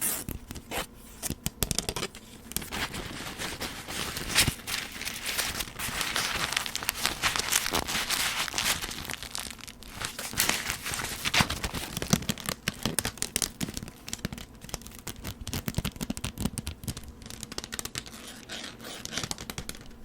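Close-up crinkling and tearing handling sounds: a dense run of small crackles and taps, thickest in the middle.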